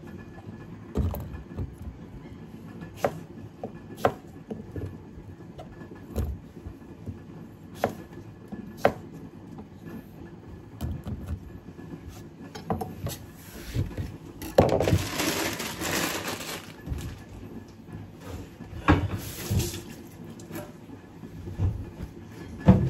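Irregular knocks and clinks of kitchen prep: a knife and utensils against a cutting board and dishes. About two-thirds of the way through there are a few seconds of hissing noise, and a shorter burst follows.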